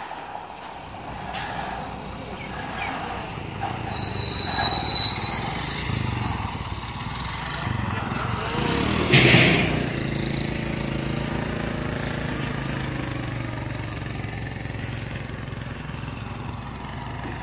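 Roadside traffic: a small motorcycle rides past close by, loudest about nine seconds in, and a steady engine hum follows. A high, thin steady tone is heard for a few seconds before it.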